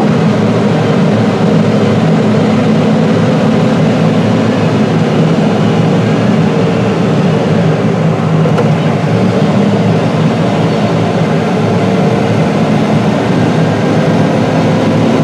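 Deutz-Fahr 9340TTV tractor's 340 hp six-cylinder diesel engine running steadily under load as it pushes corn silage with a front dozer blade, a steady drone.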